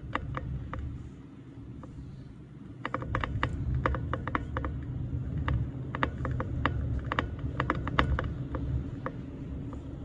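Car tyres rolling over an icy, rutted road, heard inside the cabin: a low road rumble with irregular sharp clicks and crackles of ice and slush under the tyres and against the car, thickest from about three seconds in.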